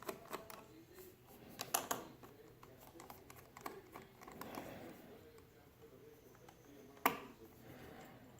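Quiet, scattered clicks and taps of a precision screwdriver bit and small screws against a laptop's case, with one sharper click near the end.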